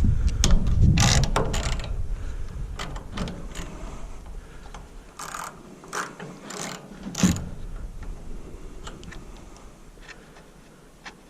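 Ratchet wrench clicking as a fastener on the wood chipper's small engine is worked loose, with scattered clinks and knocks of tools on metal, the sounds growing quieter toward the end.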